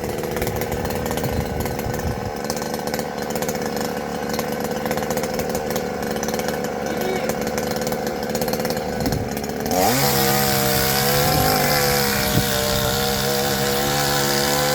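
Patriot gasoline chainsaw running steadily at low speed, then revved up to full throttle about ten seconds in and held there.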